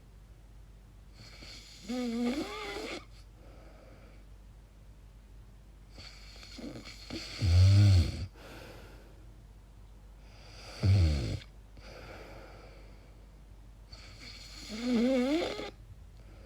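A woman snoring in her sleep, with strange noises on four breaths about four seconds apart. The two in the middle are loud, low snores. The first and last are higher, wavering sounds whose pitch bends up and down.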